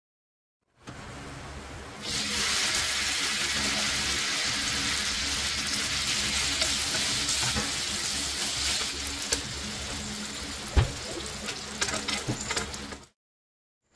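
Spaghetti sizzling in hot rendered guanciale fat in a stainless steel frying pan while it is tossed with tongs. The hiss starts loudly about two seconds in, and a few clicks of the tongs against the pan come near the end.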